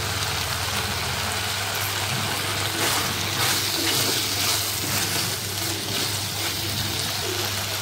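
Chicken masala frying and sizzling in the pot as a spoon stirs it, with a steady low hum underneath.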